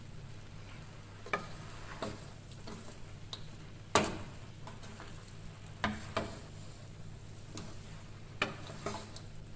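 Wooden spatula stir-frying noodles and vegetables in a metal wok: a soft rustle and scrape of the food, with about seven sharp knocks of the spatula on the pan, the loudest about four seconds in.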